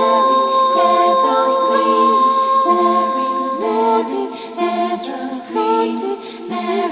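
A cappella vocal music: several voices singing together in harmony, holding long notes that change pitch in steps.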